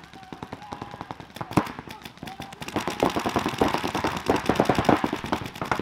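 Paintball markers firing in rapid strings during a match, many shots a second. The shots are sparse at first and pick up from about a second in, densest through the second half.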